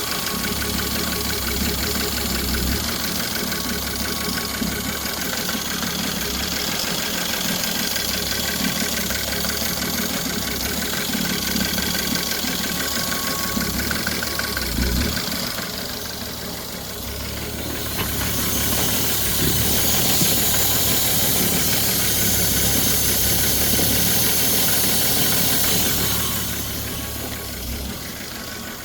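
Ford 3.5 EcoBoost twin-turbo V6 running with a knocking from the bottom end, the sign of a failing connecting-rod bearing (rod knock). It softens briefly about halfway through, then runs louder with more hiss for several seconds before fading near the end.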